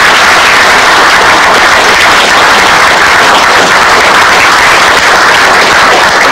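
Audience applauding, steady and loud.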